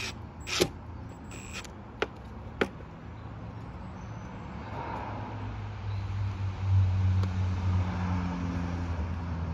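A cordless drill driving a screw gives a couple of short whirring bursts near the start, followed by two sharp clicks. Then a car on the road draws near, its engine hum building over the second half and loudest about seven seconds in.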